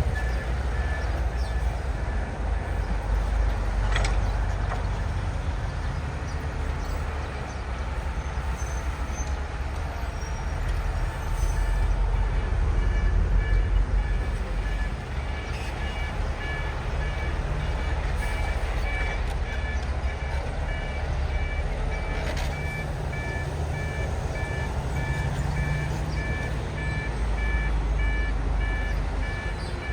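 Diesel engine of heavy earthmoving machinery rumbling steadily at work, with a single sharp clank about four seconds in. A reversing alarm beeps in an even repeating pattern briefly at the start and again through the second half.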